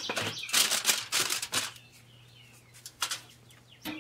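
A foil-covered aluminium foil pan is set onto the metal rack inside a Pit Barrel Cooker: foil crinkles and metal clatters for about two seconds. Then it goes quieter, with a faint low hum and a single click about three seconds in.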